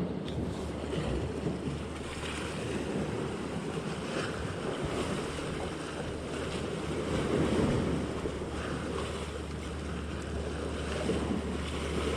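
Sea waves washing on a rocky shore, with wind on the microphone; the wash swells a little partway through.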